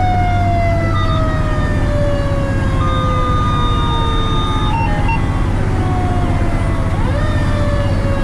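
Fire truck siren winding slowly down in pitch, then spun back up near the end, over the steady rumble of the truck's engine.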